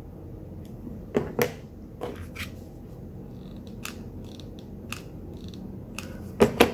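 Scattered short clicks and light knocks of scissors and a hot glue gun being handled on a craft table, with two louder paired clicks, one about a second in and one near the end.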